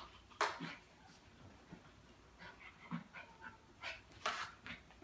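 Small dog making play-fighting noises with a cat: short, sharp huffs and snuffles at irregular intervals, the loudest about half a second in and again near the end.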